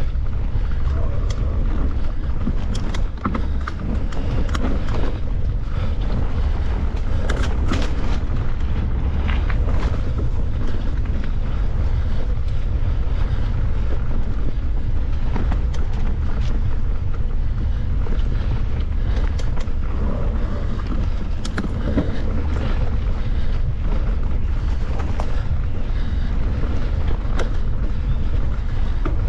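Wind buffeting the microphone in a steady low rumble while a mountain bike is ridden, with scattered clicks and rattles from the bike over rough trail.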